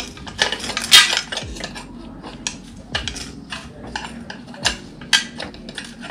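Metal clinking and clattering of a bicycle chainring being worked off the crank spider, a run of irregular small knocks and clicks with the loudest about a second in.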